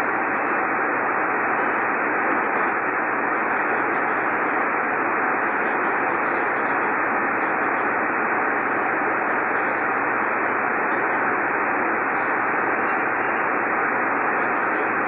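Steady static hiss from a Yaesu FT-1000MP Mark-V HF receiver on the 75-meter band. It is heard through the sideband filter, which cuts off the highs, and comes from an open frequency between transmissions with no voice on it.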